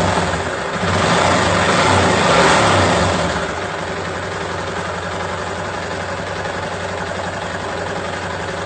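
Yamaha Fazer 250's single-cylinder four-stroke engine revved briefly, then settling to a steady idle about three seconds in, running smoothly with no knock. The engine has just been rebuilt after a loose connecting rod, a cylinder loose in its liner and a faulty cam chain tensioner.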